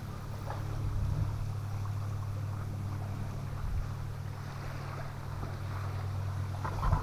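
Motorboat engine running steadily at an even pitch: a low, unbroken drone.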